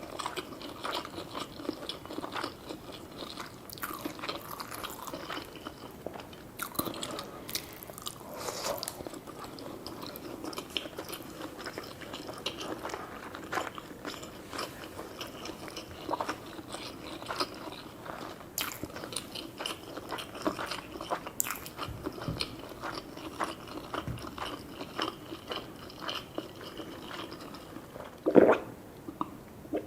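A person chewing and biting sushi and gyoza, close up, with many small crunchy and wet clicks. A single louder sound breaks in about two seconds before the end.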